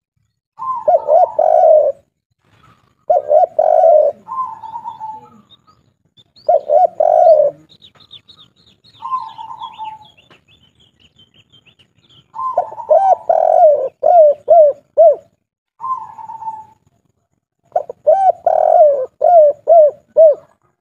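Spotted dove cooing over and over, about five phrases, the later ones ending in a quick run of four or five notes. A small bird chirps faintly and high in the gap midway through.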